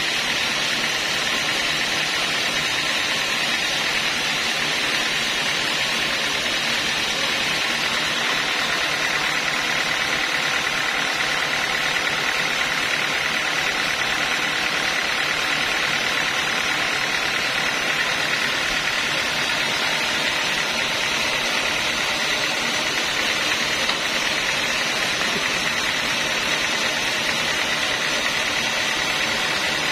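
Homemade band sawmill running steadily between cuts, a constant even machine noise with no change in pitch or load.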